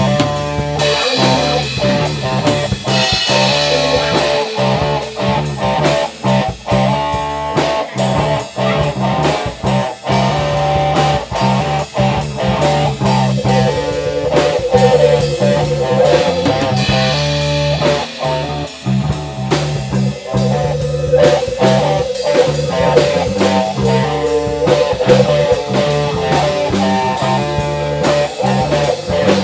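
Instrumental rock jam with electric guitars, bass guitar and drum kit playing a bluesy groove. A lead guitar holds wavering vibrato notes twice, around the middle and again a few seconds later.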